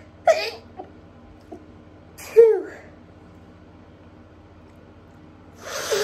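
Three stifled sneezes held back with the nose pinched shut: a short sharp one about a third of a second in, a louder one about two seconds in with a falling pitch in the voice, and a third near the end that builds up before it bursts.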